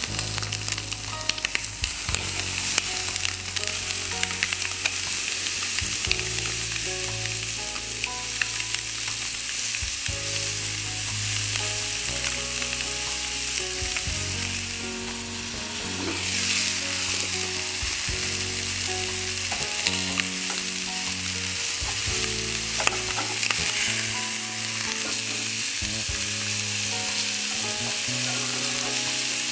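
Marinated chicken pieces sizzling on a hot gas grill grate: a steady frying hiss full of small crackles and pops.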